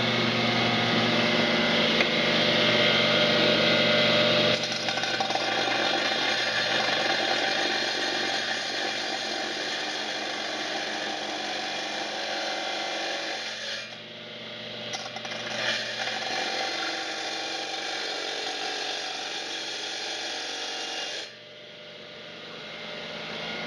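Power cutter with a blade running and cutting into a tile to make an inside notch, its motor note shifting as it bites, then stopping abruptly a couple of seconds before the end.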